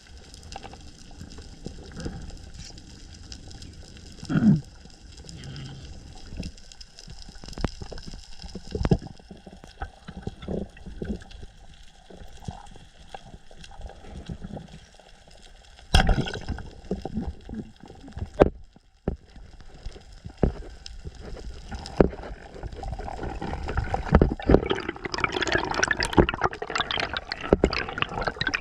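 Water sloshing and gurgling around a spearfisher's underwater camera, with scattered clicks and knocks. The water noise grows louder and busier over the last few seconds.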